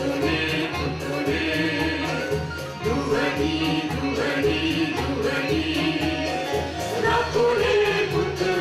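A song: voices singing a melody together over a steady rhythmic beat.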